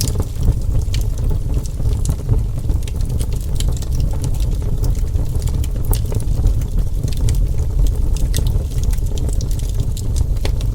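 Wood fire burning, with a steady low rumble under frequent sharp crackles and pops.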